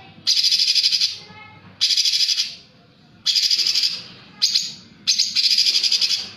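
Cucak cungkok songbird giving harsh, rapid rattling bursts of song: five high-pitched bursts, most about a second long and one much shorter, each starting sharply with a short pause between them.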